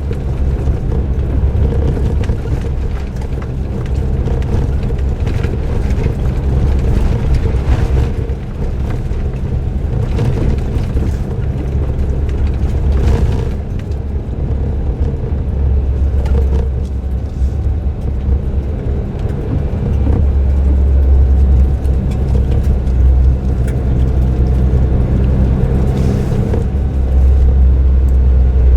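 Suzuki Jimny JB23W's 660 cc turbocharged three-cylinder engine, fitted with an aftermarket muffler, running steadily under way with tyre and road noise, as picked up by an in-car drive recorder. The engine drone swells a little twice in the second half, with a few light knocks from the road.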